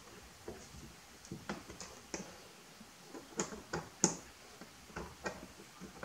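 Irregular light clicks and taps of hand work with tools and screws up under a car's front bumper, the loudest about four seconds in.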